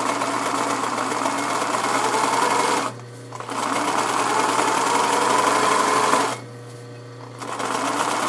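Electric sewing machine stitching a straight seam in three runs, each a steady whir with a slightly rising pitch, stopping briefly twice in between.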